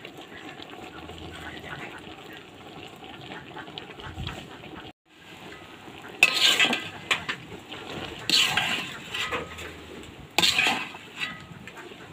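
Taro stolons frying in oil in a pan with a steady sizzle, then a metal spatula scraping and tossing them: three loud scrapes about two seconds apart in the second half, with lighter ones between.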